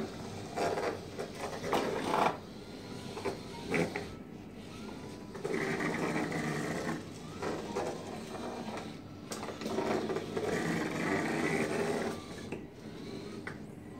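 Small electric gear motors of mBot robots whirring in bursts as the robots drive about, with two longer runs in the second half.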